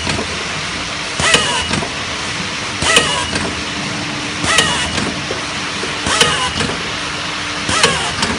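Automatic rotary bottle filling and capping machine running in its cycle: about every one and a half seconds a sharp click comes with a short falling whine, as the turntable indexes and the filling and capping heads work, over a steady mechanical hiss and hum.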